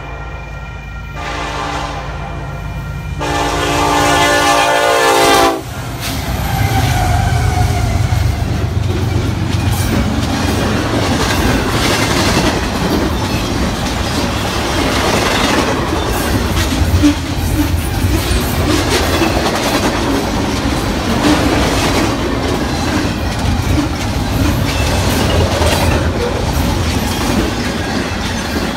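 Diesel freight locomotive's air horn sounding two blasts as the train approaches: a short one, then a long, loud one that cuts off sharply about five seconds in. The locomotives and a long string of double-stack container cars then roll past close by, wheels clattering over the rail joints.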